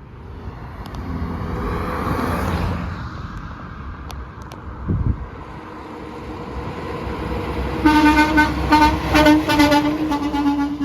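A vehicle's road noise swells and fades over the first few seconds. Then a truck's air horn sounds in a run of quick, repeated blasts for the last three seconds.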